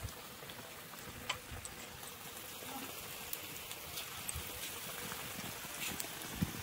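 Cauliflower pakoras in gram-flour batter sizzling as they deep-fry in hot oil in a kadai: a steady bubbling hiss, with a few sharp clicks.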